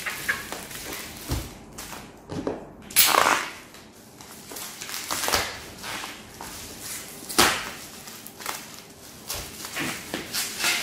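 A blade slitting the packing tape and plastic wrap of a bubble-wrapped parcel, with the wrap crackling as it is handled. There are several sharp scraping rips, the loudest about three seconds in and again about seven seconds in.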